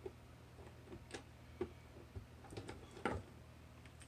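Light, scattered clicks of 18650 lithium-ion cells knocking against each other as they are handled, about one a second, with the loudest small cluster about three seconds in, over a faint steady hum.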